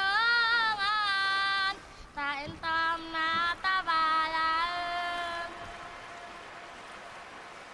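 A young girl singing unaccompanied, in phrases of long held notes that stop about five and a half seconds in, leaving a faint steady hiss.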